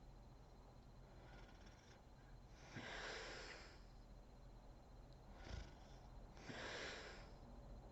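Sleeping woman's breathing, faint and airy with little snoring rumble. There are long breaths about three and seven seconds in, a shorter one between them, and a faint one about a second in.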